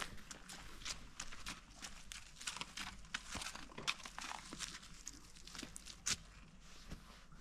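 Footsteps crunching irregularly on trampled grass and soil, with a faint low rumble underneath.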